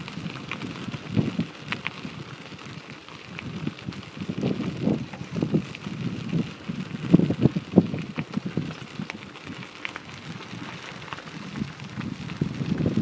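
Bicycle tyres rolling over a gravel trail: a continuous crunching and crackling, with irregular louder crunches and small clicks.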